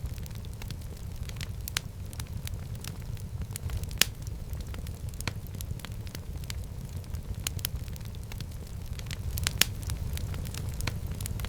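Wood fire burning in a fireplace: a steady low rumble of flame with irregular sharp crackles and pops, two of them louder, about four seconds in and near the end.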